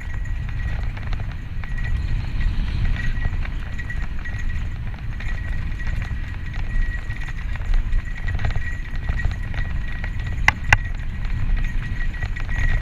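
A Santa Cruz Tallboy LTC mountain bike descending a dirt singletrack at speed: tyres rumbling and the bike rattling and clattering over the rough trail, with wind on the microphone. A faint steady high tone runs underneath, and two sharp clicks come in quick succession late on.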